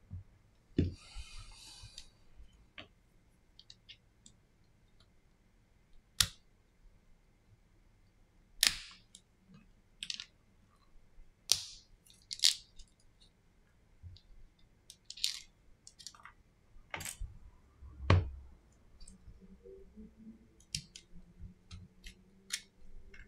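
Scattered sharp clicks and taps of a Samsung Galaxy A40 phone and small repair tools being handled on a silicone work mat during disassembly. A short scraping rustle comes about a second in, and a heavier knock with a low thud comes near eighteen seconds.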